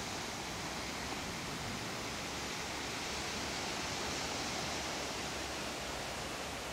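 Ocean surf washing onto a sandy shore: a steady hiss of breaking waves in which no single wave stands out.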